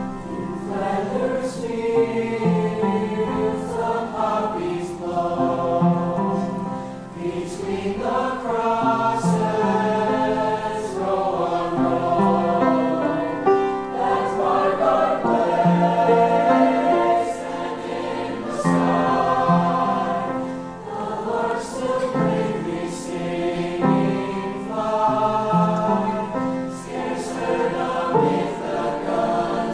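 Mixed high school choir singing a slow choral piece in parts, holding long sustained chords.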